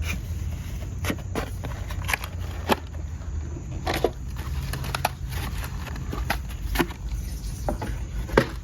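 Scattered light clicks and knocks as a toy RC truck and its accessories are handled, over a steady low rumble.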